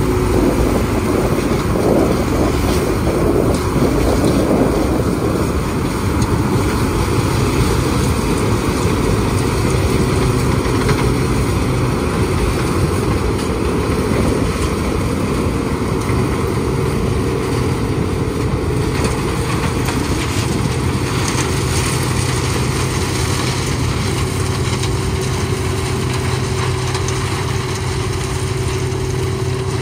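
CLAAS Mega 204 combine harvester running steadily while harvesting dry flint corn: engine and threshing machinery working under load, a constant mechanical hum.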